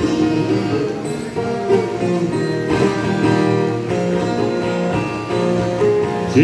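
Viola caipira (Brazilian ten-string folk guitar) plucked and strummed in an instrumental introduction, a run of ringing notes and chords before the singing begins.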